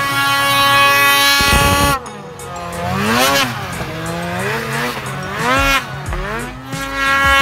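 Snowmobile engine revving hard in deep snow. Its pitch holds high for about two seconds, drops, rises and falls a couple of times with the throttle, then climbs and holds high again near the end.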